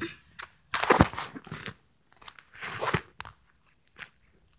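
Phone handling noise: crackling, scraping rustles from fingers and fabric rubbing close to the phone's microphone, in two loud bursts about a second and three seconds in, then a couple of faint clicks.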